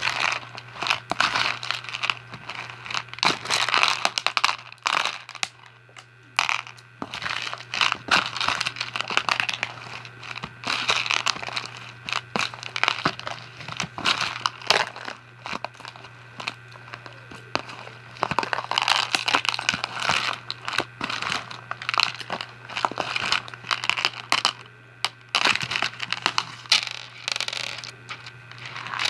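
Fishbowl slime, slime packed with small plastic fishbowl beads, being squished and kneaded by hand: a dense run of crunchy crackles and pops, with a short lull a few seconds in. A faint steady low hum sits underneath.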